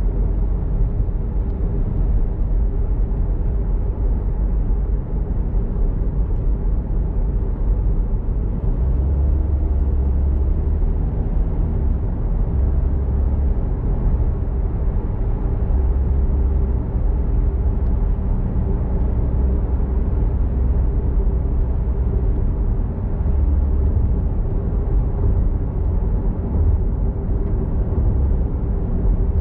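Steady low rumble of a car being driven, engine and tyre noise with no sudden events.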